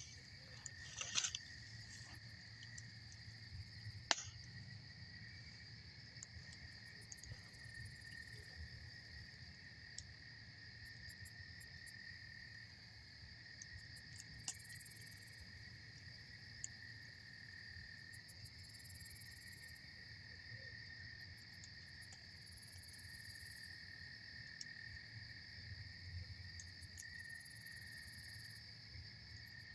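Crickets trilling steadily over a wood campfire that crackles with a few sharp pops, the loudest about four seconds in.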